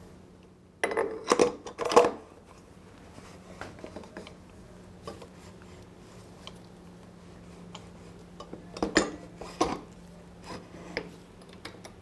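Metal parts and tools clinking and clanking while a motorcycle's rear axle assembly is being refitted: a loud cluster of sharp metallic clanks about a second in, scattered small knocks, then another cluster of clanks near the end.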